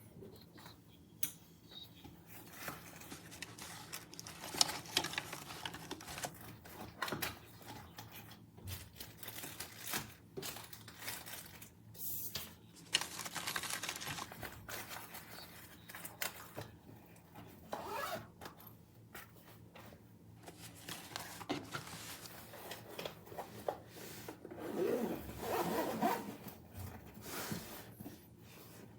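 Rustling, rubbing and scraping of packaging and parts being handled, in irregular bursts.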